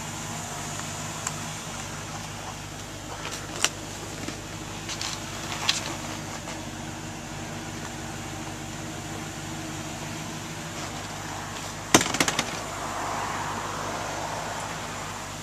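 A steady low mechanical hum with several sharp clicks and knocks over it, the loudest a quick cluster of clicks about twelve seconds in.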